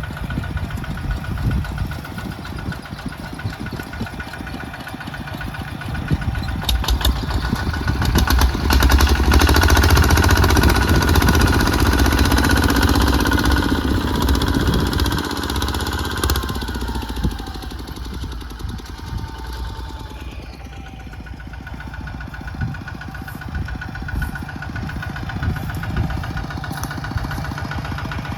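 Mini tractor engine running steadily, growing louder about a third of the way in and easing back down a little past the middle.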